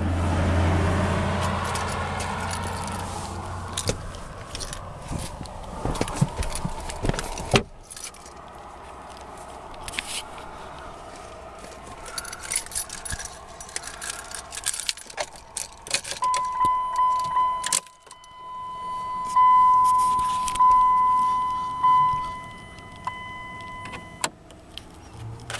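Keys jangling and clicking inside the cab of a 2004 Dodge Ram 1500 pickup, with a sharp knock about a third of the way in. Later the truck's dashboard warning chime dings repeatedly for several seconds as the key is in the ignition.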